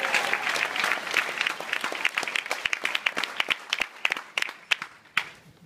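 Audience applause dying away, thinning to a few scattered claps and stopping about five seconds in.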